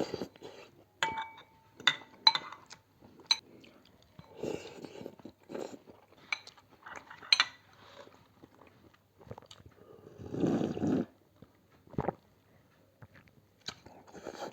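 Eating a bowl of chicken thukpa noodle soup up close: chewing and biting, with clinks of utensils against the bowl, a ringing clink about a second in. A longer noisy burst of about a second comes near the end.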